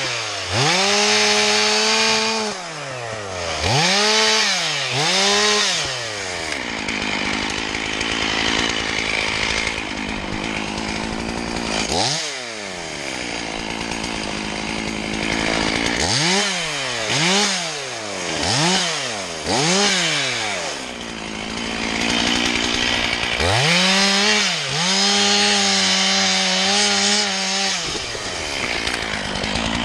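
Two-stroke chainsaw revved up and let back down over and over in short blips, running lower between them, with a longer stretch held at high revs near the end.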